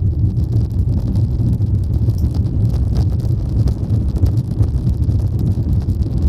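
Steady low rumble inside the cabin of an Airbus A350-900 as the aircraft moves, recorded on an action camera whose microphone renders it rough and buffeted.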